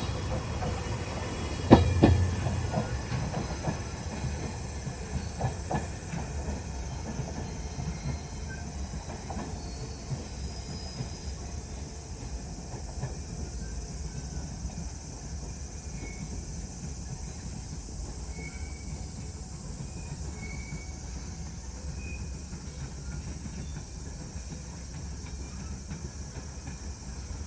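Diesel-hauled freight train rolling slowly along the track. Several sharp metallic clanks come in the first few seconds, the loudest about two seconds in, and then a low steady rumble dies down.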